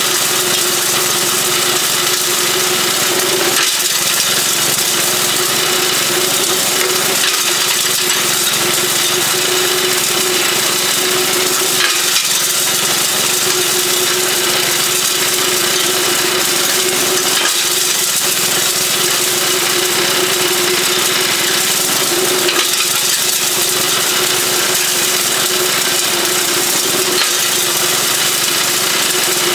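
Small 3.5-horsepower single-cylinder engine running steadily at speed, driving a home-built beer bottle crusher.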